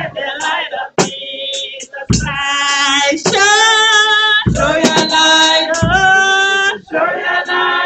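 A group of women singing a song together, several voices on long held notes, with a low thud under the singing every second or two.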